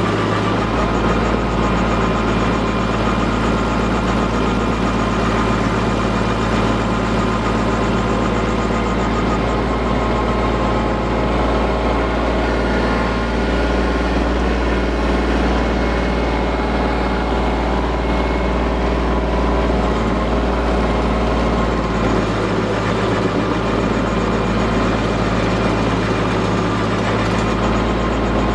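PTO-driven stump grinder on a compact tractor, its 24-inch cutting flywheel chewing into a cedar stump over the steady running of the tractor's engine.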